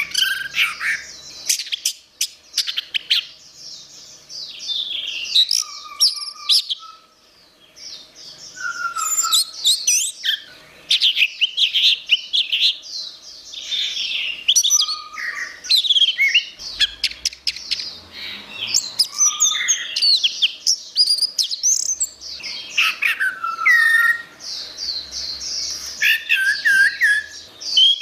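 Orange-headed thrush singing a long, varied song of quick chirps, trills and whistled glides, phrase after phrase with only brief pauses.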